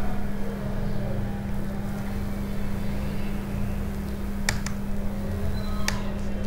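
Steady low machine hum with a rumble under it, and a few sharp keyboard clicks about four and a half and six seconds in.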